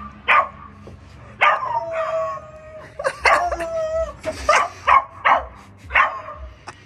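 A man imitating a dog: several short barks, with two drawn-out howls held on a steady pitch, one about a second and a half in and one about three seconds in.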